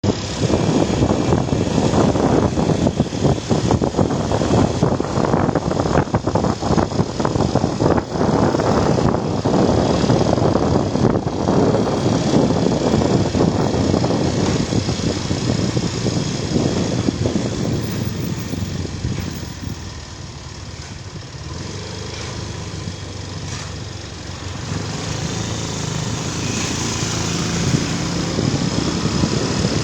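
Motor vehicle running with engine and road noise, rough and continuous. It eases off for a few seconds about two-thirds of the way through, then builds again.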